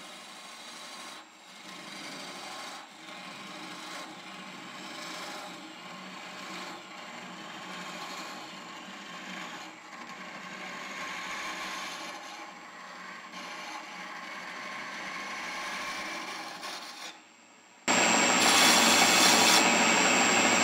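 A gouge cutting into the end grain of a spinning wood blank on a lathe, hollowing out a box from its pre-drilled center: a rough shaving and scraping sound in a series of passes with brief breaks. About three seconds before the end the sound turns abruptly louder, the lathe running with a high whine.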